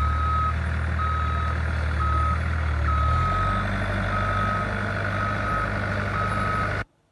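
Vehicle reverse alarm beeping steadily about once a second, each beep about half a second long, over the machine's engine running; the engine note shifts about three seconds in. The sound cuts off abruptly near the end.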